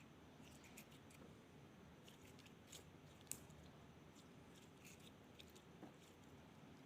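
Elmer's glue slime worked by hand, giving faint, irregular sticky clicks and pops, with one sharper pop about three seconds in.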